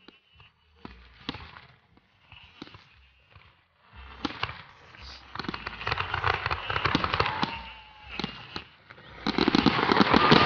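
Aerial fireworks display. At first a few scattered bangs of bursting shells, then from about four seconds in a dense run of crackling reports that grows loudest near the end.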